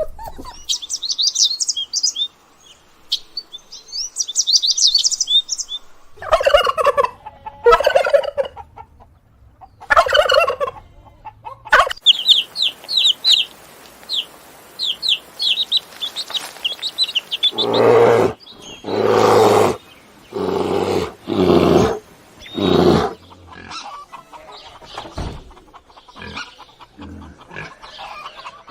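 Farm birds calling: quick high chirps and peeps, broken by lower calls, then a run of lower, roughly one-second calls about once a second that grow fainter near the end.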